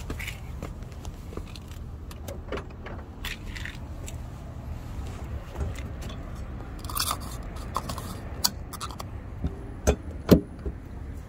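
Scraping and handling noise with scattered small clicks over a low steady rumble, as someone moves around a car. Two sharp clicks near the end are the loudest sounds.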